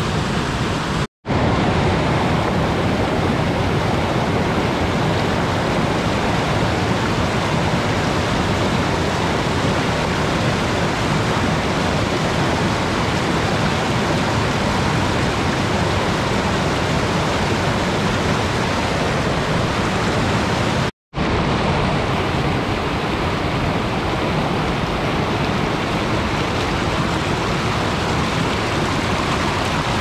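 Waterfall falling steadily, a loud, even rush of water. The sound drops out completely for an instant twice, about a second in and again about two-thirds of the way through.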